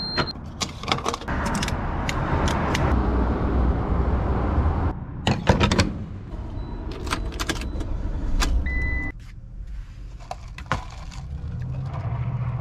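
Gas-station fuel pump: a short high beep as a fuel-grade button is pressed, then clicks and clacks of the nozzle being lifted and handled over a steady low rumble. A second, lower beep comes about two-thirds in, after which the sound drops to a quieter background with a low hum.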